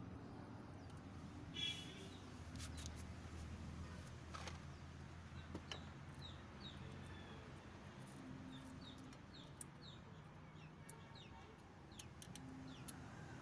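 Faint bird calls: a short call about two seconds in, then a run of quick, high, falling chirps through the second half, with a few light clicks scattered among them.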